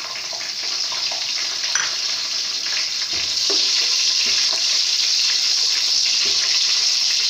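Sliced onions, curry leaves and green chillies sizzling in hot ghee in an aluminium pot while they brown dark. The steady hiss grows louder over the first few seconds and then holds, with a few light scrapes and taps of a metal slotted spoon stirring.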